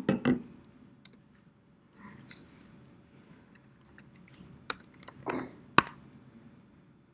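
A few scattered computer keyboard keystrokes and clicks, with one sharp click just before six seconds the loudest.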